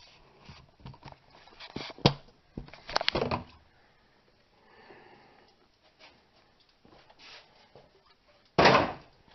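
Plastic air-cleaner housing being unclipped and opened by hand: a sharp clip snap about two seconds in, a short plastic clatter a second later, and a louder rustling scrape near the end.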